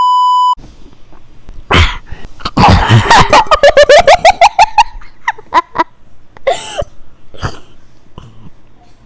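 A person making water sounds with their mouth: a pulsing, bubbling gargle with the voice running through it for a couple of seconds, then splutters and coughs. A short electronic beep sounds at the very start.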